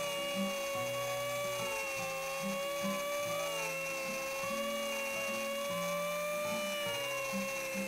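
An electric saw's motor running at a steady high whine, under background music with a low bass line.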